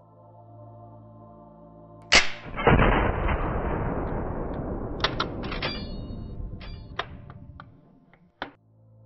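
Single rifle shot for an animated AKM: a sharp crack about two seconds in, then a loud blast with a long rolling decay that fades over about five seconds. Several light metallic clicks and clinks follow as the action cycles and the spent casing is ejected, over a soft ambient music pad.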